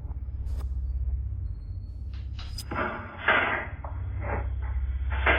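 Doorbell-camera microphone audio with a steady low hum: a few sharp clicks, then from about three seconds in a run of loud, muffled thumps and rustles, like a door being handled and bumping.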